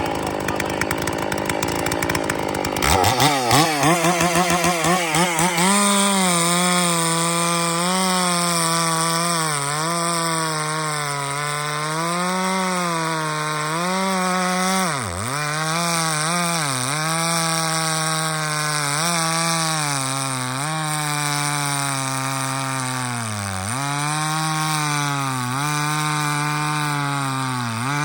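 Stihl 046 two-stroke chainsaw with a dual-port muffler running at high revs, pulling a 28-inch full-skip chain through white oak. Its engine note wavers up and down with the load and sags sharply twice, about halfway through and again later, before recovering.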